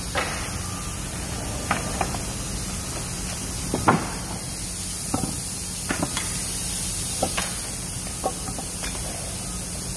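Wooden pallet runners knocking and clacking against each other and the workbench as they are picked up, carried and laid down: about ten sharp knocks, the loudest about four seconds in, over a steady factory hum.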